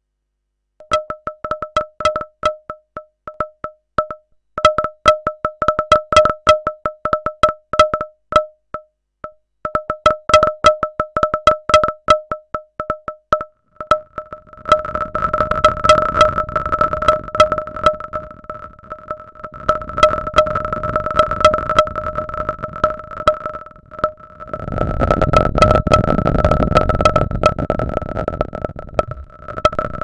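Synthesized rolling tin can from a Pure Data patch: irregular metallic clicks, each ringing at the same two pitches. About halfway through they merge into a continuous rolling rattle over a low rumble, which breaks off briefly and then comes back louder near the end.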